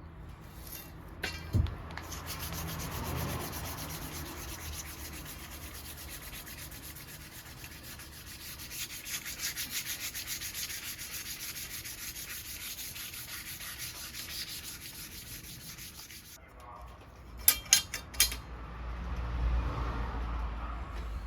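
Steady, harsh abrasive noise from work on steel, running about fourteen seconds and cutting off suddenly, followed by a few sharp metallic clinks.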